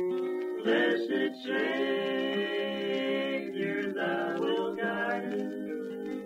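Bluegrass band's voices singing in close harmony, holding long notes with little instrumental backing. It comes from an old 1948 radio recording, thin and dull-topped in sound.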